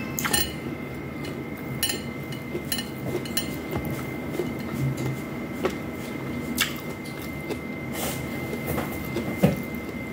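Eating by hand from a plate: chewing and mouth sounds with scattered light clicks and clinks as fingers pick rice and fried pork off the plate, one sharper click near the end. A faint steady high whine and low hum run underneath.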